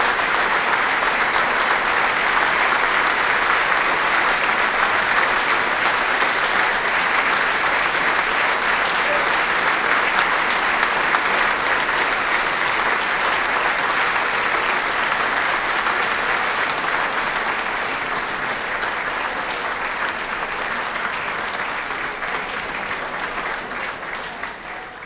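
Theatre or concert audience applauding steadily, a dense wash of hand claps that tapers off near the end.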